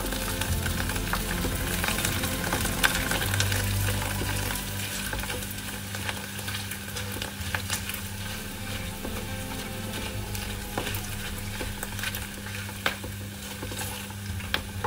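Keropok crackers sizzling as they fry in hot oil in a wok, stirred and turned with a spatula that clicks and scrapes against the pan at scattered moments.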